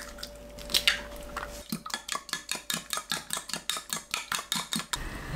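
Eggs being beaten in a glass measuring cup: a utensil clicks against the glass in a fast, even rhythm of about six or seven strokes a second. The beating starts about a second and a half in and stops just before the end.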